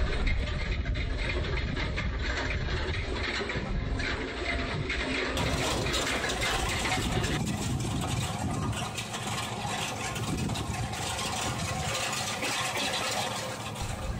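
Tractor engine running steadily under load while pulling a cultivator through the soil, with the implement working close by. The sound changes abruptly about five seconds in.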